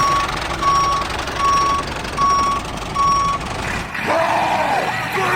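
Vehicle reversing alarm beeping five times, about one beep every 0.8 s, over a steady engine-like rumble. Near the end the beeps stop and a loud wavering yell comes in.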